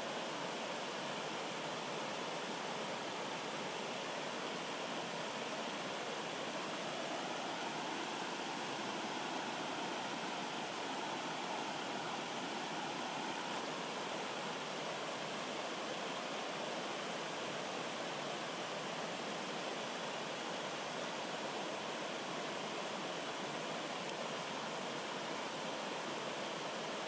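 A rocky stream running over small cascades and between boulders: steady, unbroken rushing water.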